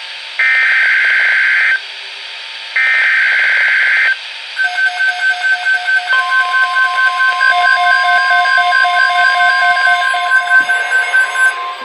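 NOAA Weather Radio EAS alert tones. First the last two bursts of the SAME digital header, data tones each over a second long with a short gap between them. Then a fast-pulsing alarm beep, joined about six seconds in by the steady 1050 Hz Weather Radio warning alarm tone, both stopping shortly before the end.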